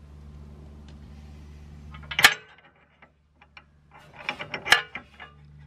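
Metal clinks and knocks from a car's front steering knuckle and a Hardrace roll centre adjuster spacer being worked into line over the lower ball joint: one sharp knock about two seconds in, then a quick cluster of clinks about four seconds in.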